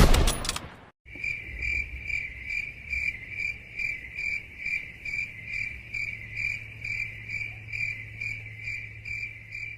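A loud hit at the very start fades out within a second, then a cricket chirping sound effect, the 'awkward silence' meme sound, runs as an even, high-pitched chirp about two to three times a second over a low hum.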